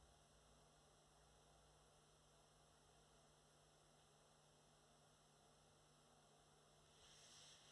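Near silence: a faint steady hiss with a low hum, the hiss swelling slightly near the end.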